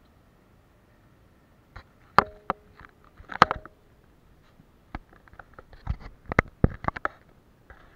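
Clicks and knocks of a handheld camera being handled and moved. A few come about two to three seconds in, some with a short ringing tone, and a quicker run of sharp knocks follows near the end.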